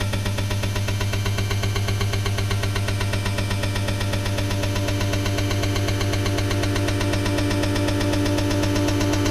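Electronic soundtrack: a steady, fast-pulsing, machine-like drone with several held tones, one in the middle register growing louder near the end.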